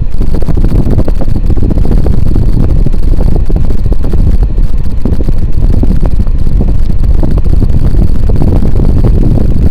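Wind from a Casablanca Delta II ceiling fan's blades buffeting the microphone: a loud, low, fluttering rumble that drowns out the fan's own running sound.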